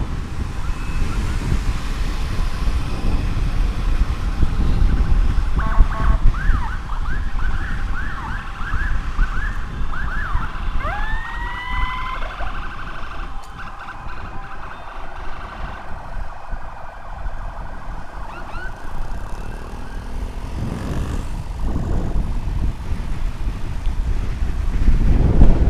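An emergency siren from the ambulance escort sounds over heavy wind rumble on the microphone. A run of quick yelping sweeps comes about six seconds in, followed by a couple of slower rising wails, and the siren is fainter in the second half.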